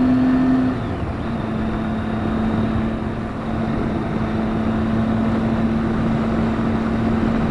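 Triumph Tiger 800 XCx's three-cylinder engine running at highway cruising speed, with wind and road noise. The engine note dips briefly about a second in, then holds steady.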